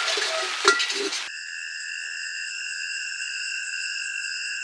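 A utensil stirring and clinking against a cooking pan with a light sizzle, which cuts off abruptly about a second in. A steady insect chorus follows, calling at several even, high pitches at once.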